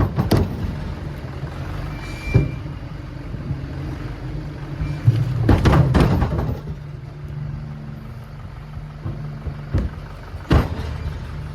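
An engine running steadily, with several sharp knocks and thuds over it: a single knock about two seconds in, a cluster around the middle and a loud one near the end.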